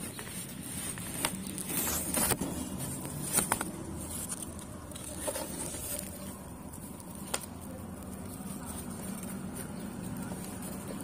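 Soft rustling and scattered small clicks of wood-pellet bedding and dry straw as hamsters move about and nibble, over a low steady rumble.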